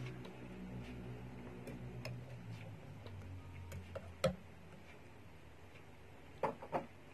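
Metal fork and spoon clinking and scraping against a ceramic soup bowl while cutting up and eating meatballs, with scattered light clicks, a sharper clink about four seconds in and two more near the end. A low steady hum underneath fades out about three seconds in.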